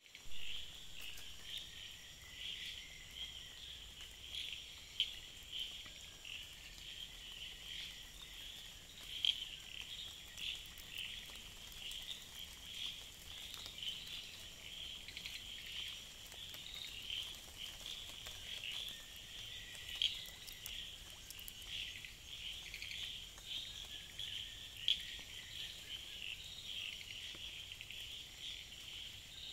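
Night chorus of insects and frogs: a dense, fast high-pitched trilling and chirping, with a few louder sharp pulses standing out every several seconds.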